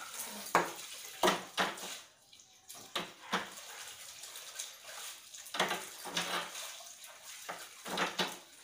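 A dog and a kitten play-fighting on a tiled floor: about a dozen short scuffling knocks and scrapes in irregular clusters.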